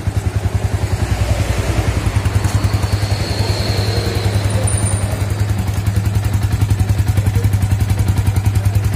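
Yamaha Vixion's single-cylinder fuel-injected engine idling cold with an even, rapid exhaust beat, at about 1250 rpm, which is too low for a cold engine.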